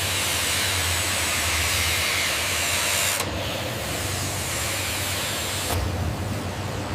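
Steady factory machinery noise: a low hum under a wide hiss, changing character abruptly about three seconds in and again near the end.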